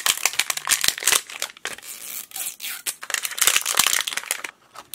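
Printed paper wrapper being torn and crinkled off a MiniVerse capsule ball: a dense run of sharp crackles, loudest at the start and again near the end.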